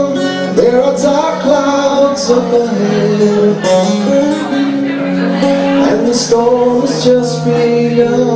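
Live acoustic song: a man singing into a microphone over an acoustic guitar.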